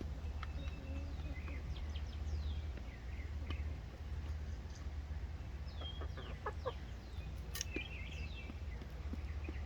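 Chickens clucking and giving short calls, with a few sharp clicks among them over a steady low rumble.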